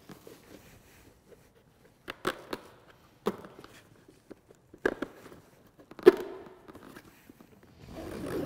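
Scattered sharp clicks and knocks as white plastic push rivets are pressed through a fabric snowmobile seat bag into the plastic underside of the seat, with faint rustling of the bag between them; the loudest knock comes about six seconds in.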